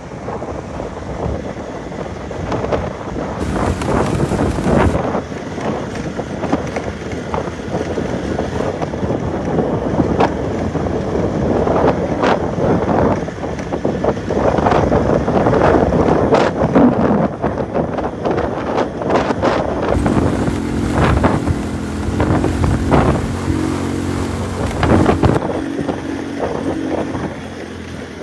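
Wind buffeting the microphone, gusting up and down, with scattered knocks. A low steady hum joins for a few seconds about two-thirds through.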